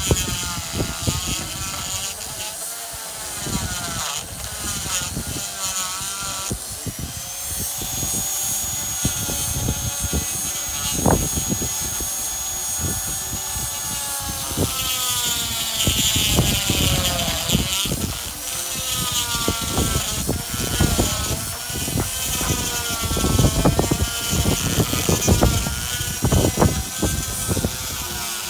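Die grinder with a rotary burr grinding into stone. Its whine sags and recovers as the bit bites and eases off, over a rough scraping chatter.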